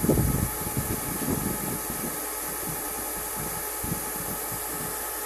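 Steady mechanical running of a seed-tender's Canagro brush auger as it pours granular seed into a planter's hopper. Uneven low rumbles come through in the first two seconds, and after that the sound settles into an even hum.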